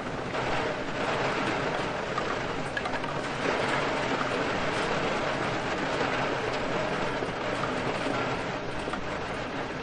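Steady rain with wind, a dense even hiss that swells a little in the middle.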